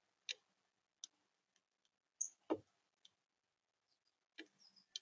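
Birds pecking and landing on a bird-feeder camera's feeder: a few sharp, separate taps and clicks, the loudest a knock about two and a half seconds in, with one brief high chirp just before it.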